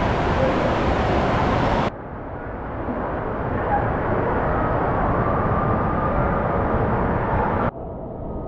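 Steady rushing background noise of an indoor water park hall, with no distinct events. It changes abruptly to a duller sound about two seconds in and again near the end.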